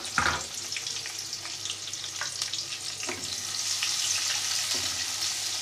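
Sliced onions sizzling in hot oil in a non-stick karahi as they are fried toward golden brown. A perforated skimmer stirs them, scraping and tapping against the pan, with a sharp knock just after the start.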